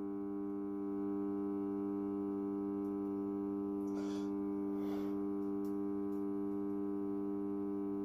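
Microwave oven transformer humming steadily with many overtones while its thick cable secondary is shorted through a red-hot steel threaded rod, drawing very high current. Two short soft hisses come about halfway through.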